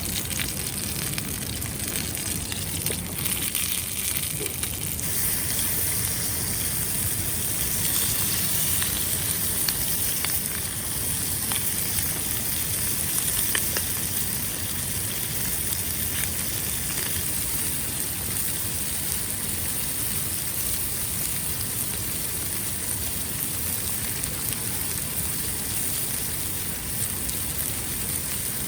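Food sizzling in a cast-iron skillet over a wood fire: a steady hiss with scattered faint pops, a little louder from about five seconds in.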